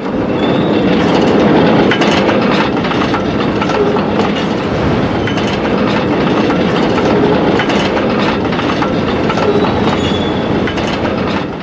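Freight train rolling along the rails with a steady rumble, its wheels clicking over the rail joints.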